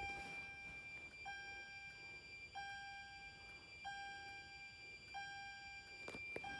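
A Wheelock remote chime on a fire alarm system in alarm, sounding one chime tone about every 1.3 seconds, each striking sharply and holding about a second. A steady high-pitched tone runs underneath, with faint rising high chirps in step with each cycle, and there is a sharp click near the end.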